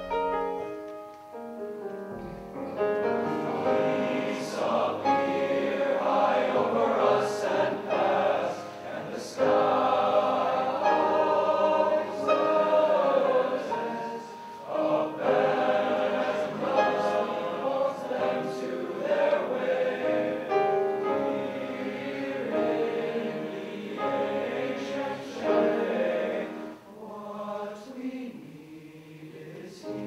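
A male choir singing in several parts, swelling and easing, and growing quieter near the end.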